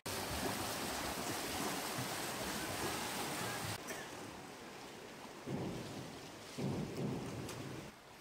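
Swimmers splashing through the water of an indoor swimming pool: a steady wash of splashing, quieter from about four seconds in, with two brief louder swells near the end.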